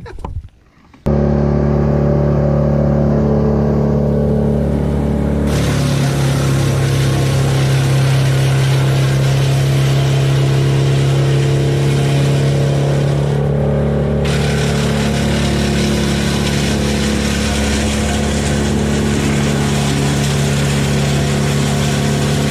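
Gas engine running steadily at high speed, starting abruptly about a second in, with its pitch dropping slightly about five seconds in.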